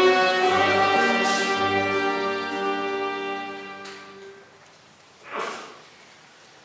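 Folk dance tune played on fiddles and accordion with a double bass, ending on a held chord that fades out about four seconds in. A single short noise follows about a second and a half later.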